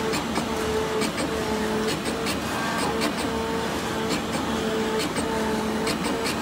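CNC oscillating knife cutting machine running as it cuts leather: a steady mechanical hum with a motor whine that switches on and off every half second or so as the head moves, and scattered clicks.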